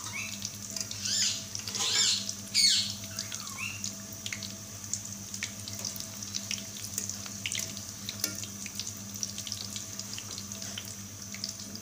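Rolls deep-frying in hot oil: a steady bubbling crackle of many small pops, while a wire skimmer turns them in the pan. About one to three seconds in, a few short high squeaks sound over the frying.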